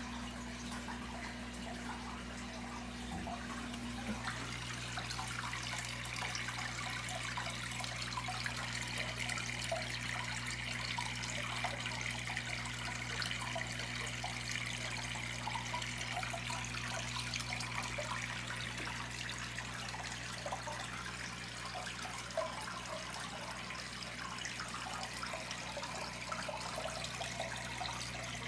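Aquarium water steadily trickling and bubbling over a constant low hum from the tank's pump or filter.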